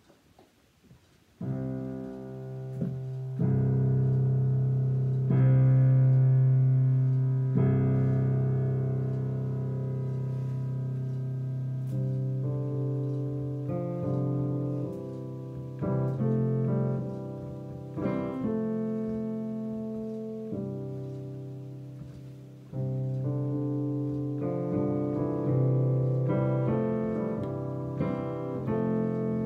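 Slow, gentle solo piano playing with sustained chords, starting about a second and a half in, and with more movement in the higher notes in the second half.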